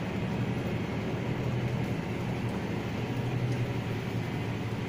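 Midea MAS90-S501G automatic washing machine running its spin cycle: a steady hum with a whirring noise, spinning fast.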